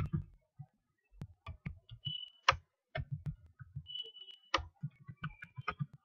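Computer mouse being clicked and scrolled: irregular runs of sharp clicks and soft low knocks, with a couple of short high tones.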